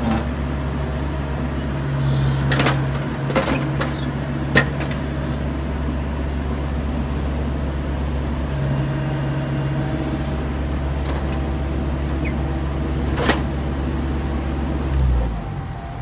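Diesel engines of a Bobcat mini excavator and a backhoe loader running steadily while they work a large boulder, with a few sharp knocks and clanks. The low engine drone drops away about a second before the end.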